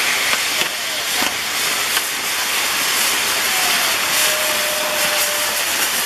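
Maltese ground fireworks (nar tal-art): the gerbs on a firework wheel jetting sparks with a steady, loud hiss, with a few sharp pops in the first two seconds.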